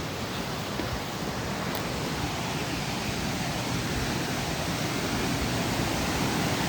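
Steady rush of falling water from a waterfall, slowly growing louder.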